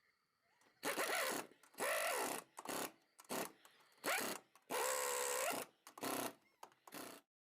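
A power tool running lug nuts onto a car's wheel studs in about eight short bursts, its motor pitch rising and falling with each trigger pull.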